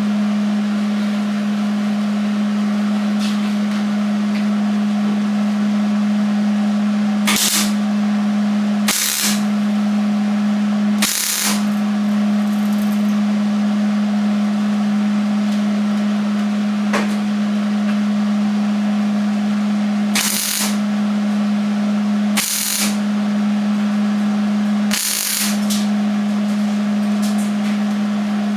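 Six short bursts of welding, each about half a second long, as washers are tack-welded into the old emblem holes in a truck's steel front fender. A steady low hum runs underneath.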